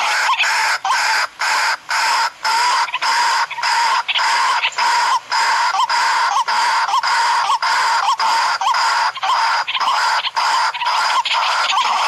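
Waterhen (kurowak) call repeated without a break, about two or three notes a second, played as a lure call to draw the birds in.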